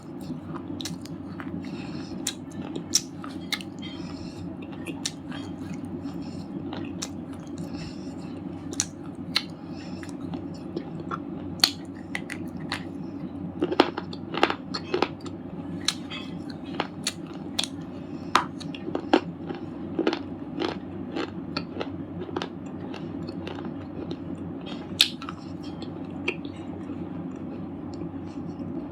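Red slate chips being bitten and chewed: a long run of sharp, separate crunches and cracks, coming thickest about halfway through. A steady low hum runs underneath.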